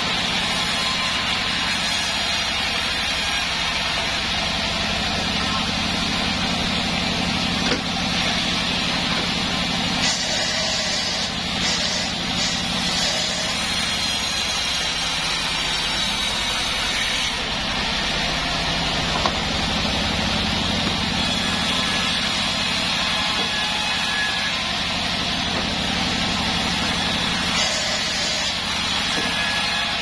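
Band sawmill running steadily while wadang timber is sawn: a constant machine drone with a few sharp knocks of wood on the saw table.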